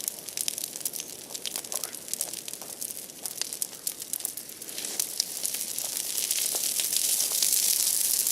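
Large bonfire of broken tree branches crackling, with many sharp, irregular pops and snaps over a steady hiss that grows louder in the last couple of seconds.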